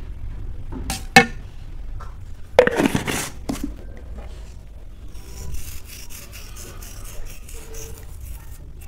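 A metal spoon and a ghee jar handled over a steel plate of rice. There is a sharp clink about a second in, a louder scraping clatter near three seconds, then soft rubbing of fingers above the plate through the second half.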